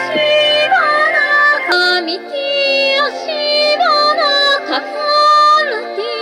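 Live electronic music: sustained synthesizer drone tones under a high, wordless, yodel-like melody that leaps back and forth between two registers and bends in pitch.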